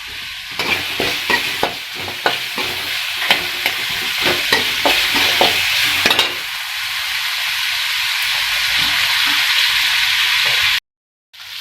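Onions and tomatoes sizzling in hot oil in a pan while a spoon is stirred and scraped through them for about six seconds, then a steady sizzle as they sauté. The sound drops out briefly near the end.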